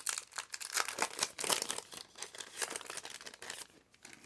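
Foil wrapper of a Pokémon card booster pack crinkling and crackling as it is handled and torn open, stopping near the end.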